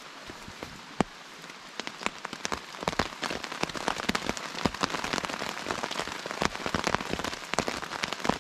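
Rain falling steadily, with many sharp drops striking a surface close to the microphone over a dense hiss. It comes in suddenly and grows heavier after about two seconds.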